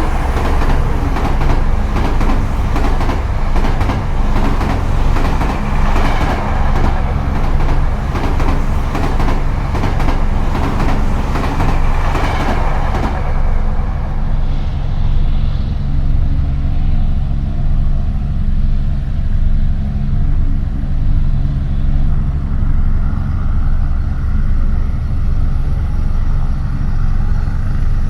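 A heavy vehicle's low, steady rumble, with dense clattering and rattling for about the first half that stops suddenly, leaving a smoother drone.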